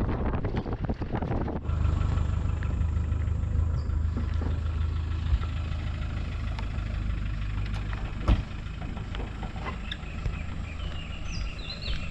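Wind buffeting the microphone for the first second and a half, then a vehicle engine running with a steady low hum. A sharp click comes about eight seconds in, and birds chirp near the end.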